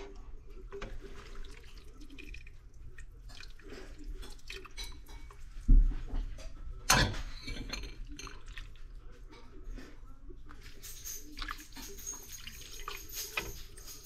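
A ladle scooping chicken noodle soup out of a metal stockpot into a bowl: utensils scraping and knocking against the pot and bowl, with broth splashing and dripping. The loudest moments are a dull thump near the middle and a sharp clack about a second after it.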